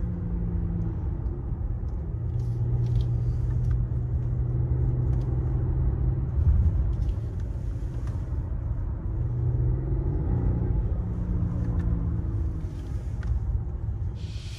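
Cabin noise of a 2021 Mercedes S-Class on the move: a steady low rumble of road and engine, with a low hum that drifts down in pitch early on and rises again about two thirds of the way through as the speed changes.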